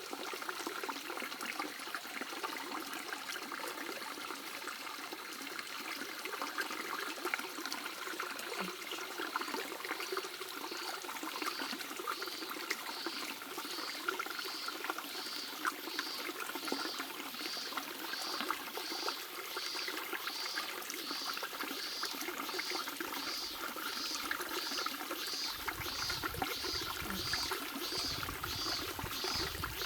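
A shallow stream babbling and trickling over stones in a steady, even rush. From about a third of the way in, a faint high chirp repeats a little more than once a second alongside it, and a low rumble comes in near the end.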